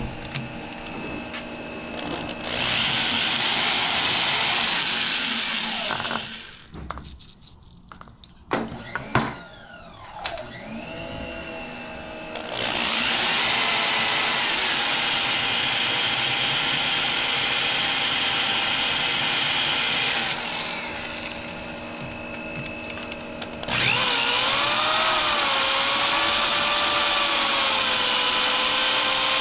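Electric drill turning a diamond-tipped tile bit, grinding into a broken, very hard bolt that is suspected to be stainless steel. The drill is run in three long spells of cutting, each a steady motor whine over a grinding hiss. Between the first and second spells the motor spins down and then winds back up, its pitch falling and rising.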